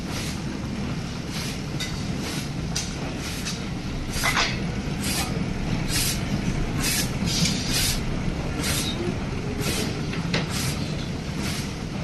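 Automatic battery welding machine running through its cycle: a steady low hum with short hissing bursts about once or twice a second at uneven spacing.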